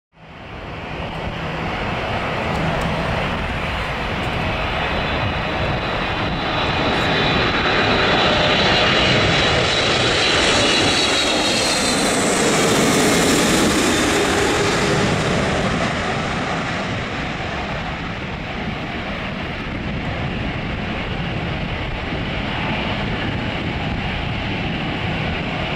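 Boeing 777-300ER jet on final approach passing low overhead, its twin GE90 turbofans whining and growing louder to a peak about halfway through, the whine sliding down in pitch as the plane goes by. The sound then settles to a steady, duller rumble as the jet descends toward the runway farther off.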